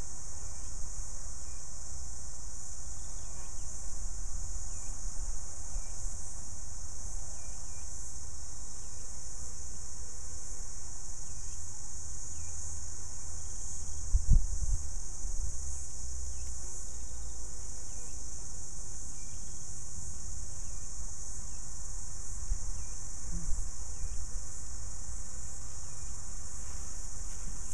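Steady, unbroken high-pitched insect chorus, with a low rumble underneath and a single thump about halfway through.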